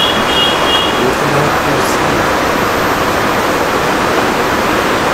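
Hot-air rework station blowing a steady rush of hot air while a MOSFET is heated off a phone board. A brief high electronic beep sounds right at the start.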